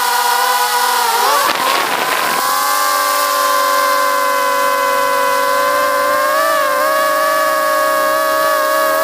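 Quadcopter drone's motors and propellers whining close to the microphone: a steady hum of several tones at once. About a second and a half in, the pitch wavers and shifts for a second with a rush of noise as the drone changes speed, then holds steady again, rising and dipping slightly about two thirds of the way through.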